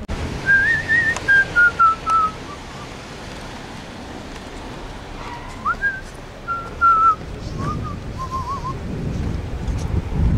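A person whistling a tune in two short phrases, the second starting about six seconds in, over low street noise.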